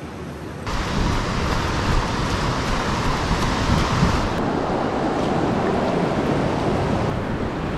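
Wind buffeting an action camera's microphone over a steady wash of surf. It starts abruptly about a second in, after a quieter stretch of even hiss.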